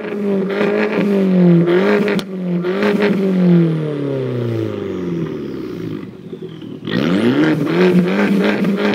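Abarth Punto's 1.4 turbocharged four-cylinder engine revved hard through a straight stainless-steel exhaust with no dB killer fitted, making a loud, steady high-rev drone. About halfway through the revs fall away to a brief lull, then it is revved sharply back up and held high again.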